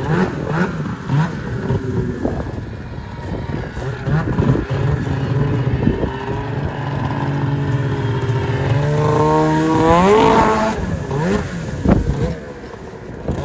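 Snowmobile engine running at a steady note, then revving up sharply about nine to ten seconds in and dropping back, with a loud knock near the end.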